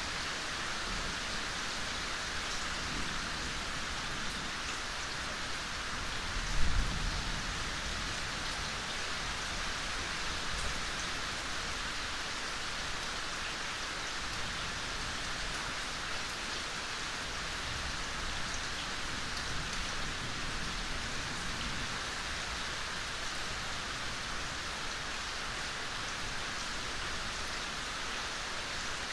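Soft, steady rain falling, an even patter throughout. A brief low thump stands out about six and a half seconds in.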